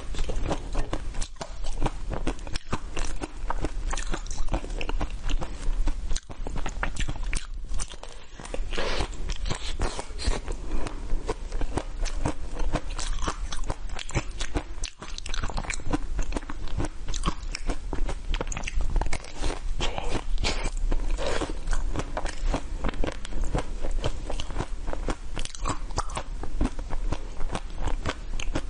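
Close-miked biting and chewing of a chocolate-coated ice cream bar: a dense run of crisp crunches as the frozen shell breaks between the teeth.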